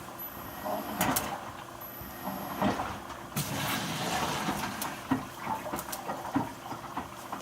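Washing machine running, water swishing in the drum with irregular clunks and clicks.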